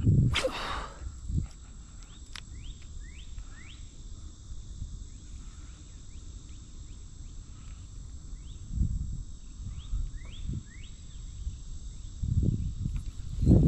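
Streamside outdoor ambience: a continuous low rumble that swells about nine seconds in and again near the end, with short rising chirps a few at a time early on and again later. A brief whoosh comes about half a second in.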